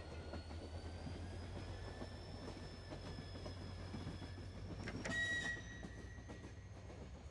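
Interior of a moving ES2G Lastochka electric train: a steady low rumble under the electric motors' whine, which slowly rises in pitch as the train gathers speed. About five seconds in comes a short, loud high-pitched squeal.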